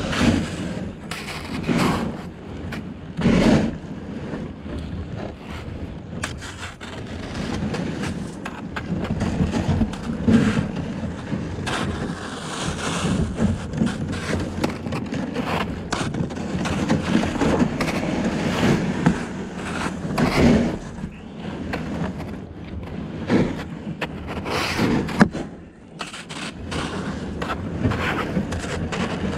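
Kayak hull sliding over and breaking through river sheet ice: continuous scraping and grinding with irregular sharp cracks and crunches as the ice gives way.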